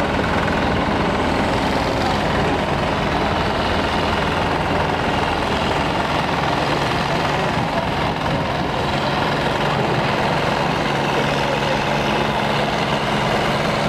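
Heavy diesel engines of a multi-axle superload transporter running steadily as the rig rolls slowly past, a dense rumble.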